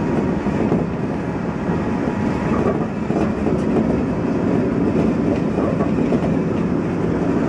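Kintetsu 1233 series electric train running along the line, heard from the front of the train: a steady running noise of wheels on rail with the train's motors, with a few faint clicks.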